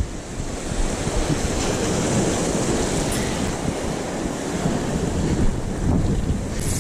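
Sea swell washing steadily over shore rocks, with wind rushing across the microphone.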